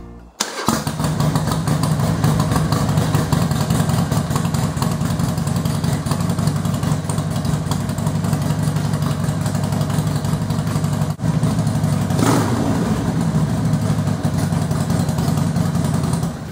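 Harley-Davidson Sportster 48's air-cooled 1200 cc V-twin idling steadily, warming up with fresh oil so the oil circulates before the level is checked. There is a brief blip about twelve seconds in.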